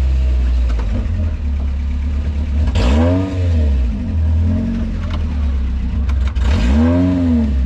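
Suzuki Gypsy off-roader's engine heard from inside the cab, running under load on loose sand and revved twice, each rev rising and then falling in pitch, about three and seven seconds in.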